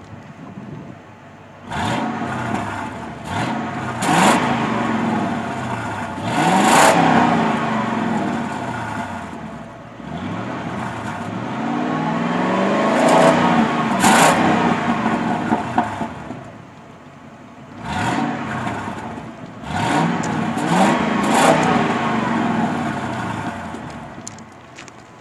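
Stock 1996 Mercury Grand Marquis 4.6L Modular SOHC V8 through its dual exhaust, idling and then revved repeatedly: a few quick blips, a longer rev that climbs slowly and is held for several seconds midway, then more quick blips near the end. It falls back to idle between revs.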